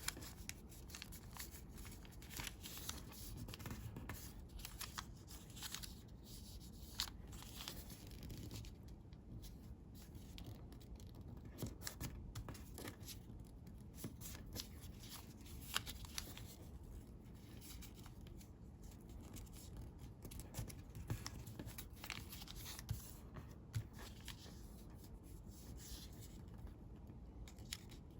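Sheets of origami coloured paper being handled, folded and creased by hand: intermittent rustling and crinkling with scattered short, sharp taps.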